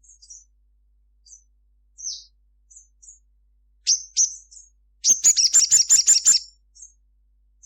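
Little spiderhunter (sogon) calling: scattered short high chips, two sharp down-slurred notes about four seconds in, then a loud rapid run of about ten notes a second later.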